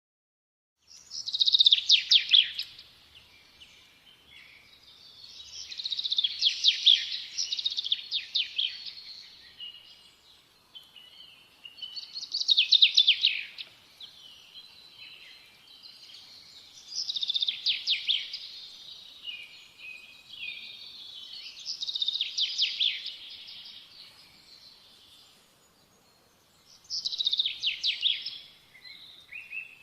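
A songbird singing: six phrases of fast, high trills and twitters, one about every five seconds, with softer chirps in between.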